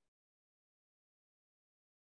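Digital silence: the audio is muted or gated, with nothing audible.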